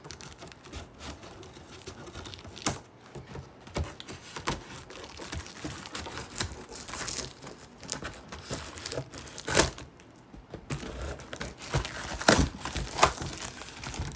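Scissors cutting plastic packing tape on a cardboard box, and the tape crinkling and tearing as it is pulled off the cardboard. Irregular rustling with a few sharp clicks scattered through, the loudest about two-thirds of the way in and near the end.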